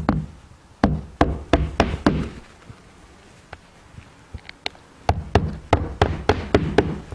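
Hammer driving roofing nails into asphalt shingles: two runs of quick blows, about three a second, with a pause between them.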